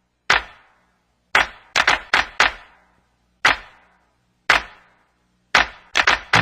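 A series of about a dozen sharp knocks or hits at an uneven pace, each dying away quickly, with silence between them and a quick cluster of hits near the end.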